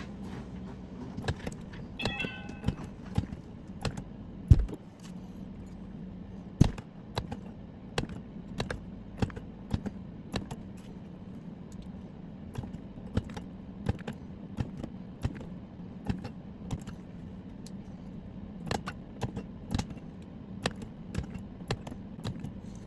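Battery spot welder welding nickel strip onto nickel-cadmium cells: a run of sharp, irregular snaps, about one or two a second, with two louder ones early on, over a steady low hum.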